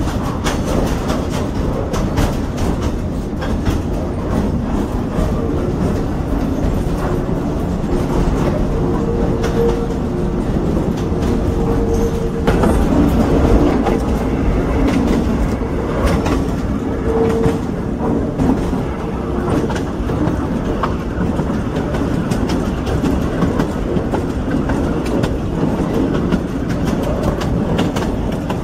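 Metre-gauge train running along rough track, the carriage rumbling and rattling with the wheels clacking over rail joints. A brief steady whine comes and goes a few times around the middle.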